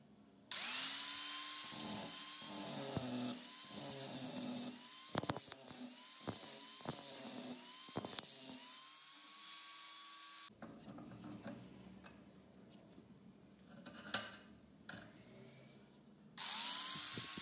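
Electric angle grinder spinning up and grinding the steel head of a hammer, its motor whine wavering as the disc bites the metal. It cuts off about ten seconds in. Near the end it starts and spins up again.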